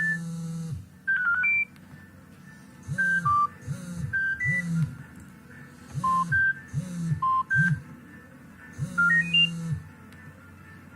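Nokia 7610 polyphonic ringtone playing: an electronic tune of short synth bass notes at a steady beat, each with a noisy percussion hit, under a high beeping melody. It pauses briefly about a second in and stops near the end.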